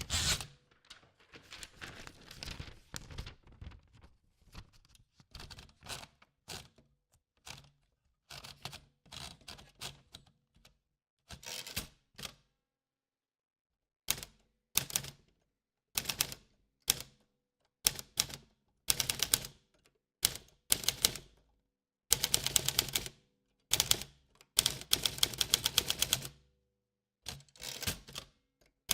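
Old manual typewriter being typed on: runs of sharp key strikes in bursts, with short pauses between them, including one pause of over a second about halfway through.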